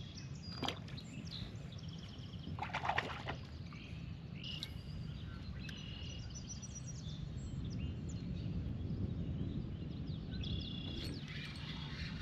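Outdoor lake ambience: birds chirping at intervals over a low, steady background noise, with a brief clatter of small knocks about three seconds in.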